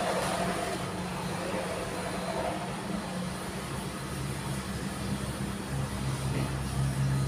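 Street traffic: a motor vehicle engine running steadily, its low hum growing louder over the last few seconds.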